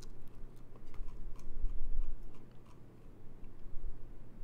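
Scattered soft clicks and ticks from a computer mouse scrolling and clicking, over low thumps and rumble, loudest about a second and a half in.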